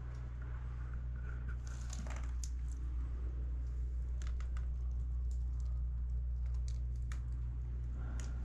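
Scattered light taps and scuffs, like steps or handling on rock, over a steady low hum.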